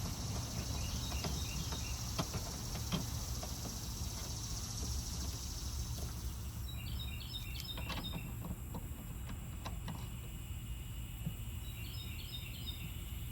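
Outdoor background: a steady low rumble with a bird singing short bursts of quick chirps three times, about a second and a half in, near the middle and near the end. There are a few light clicks in between, and a high hiss drops away a little past halfway.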